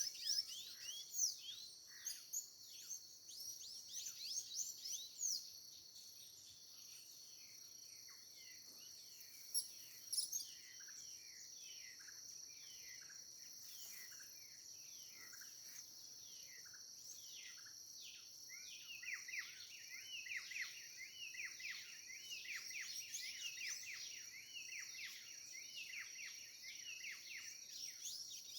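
Wild birds singing and chirping with many quick falling notes, growing denser over the last third, over a steady high-pitched insect drone.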